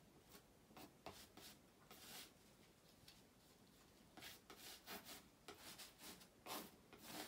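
Faint scraping of a palette knife spreading acrylic paint on canvas, in short, irregular strokes with pauses between them.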